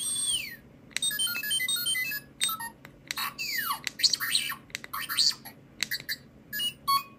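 Hot Toys 1/6 scale R2-D2 figure playing its built-in R2-D2 sound effects through its small speaker: a string of electronic beeps, chirps and whistles, some gliding down in pitch, in short phrases with brief pauses between them.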